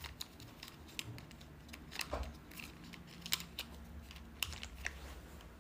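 Faint, scattered plastic clicks and taps as hands handle a battery-powered climbing toy figure, just after its battery cover has been closed.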